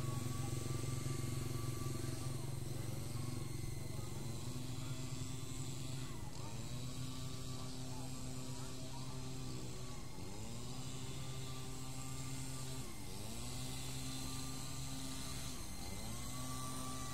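Esky Lama V4 coaxial RC helicopter in flight: a steady buzzing whine from its electric motors and counter-rotating rotors. The pitch dips and recovers about every three seconds as the throttle and manoeuvres change.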